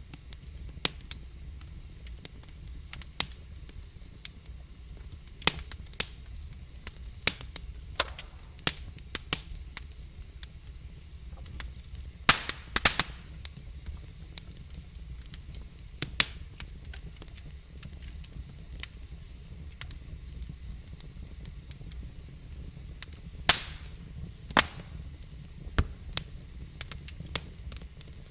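Wood logs burning in a fireplace: irregular sharp crackles and pops over a low steady rumble of the flames, with a quick run of louder pops about twelve seconds in and a few more near the end.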